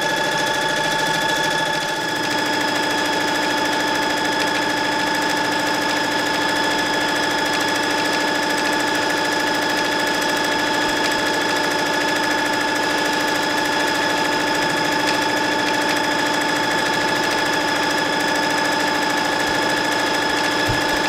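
Singer Confidence electronic sewing machine running continuously at top speed while free-motion quilting with the feed dogs lowered: a steady motor whine with rapid needle stitching that holds an even pace throughout.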